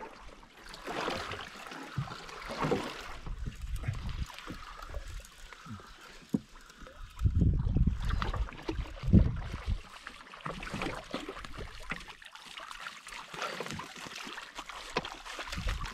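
Water sloshing and slapping against the hull of a small boat drifting on a choppy sea, uneven, with heavier low thumps about seven and nine seconds in.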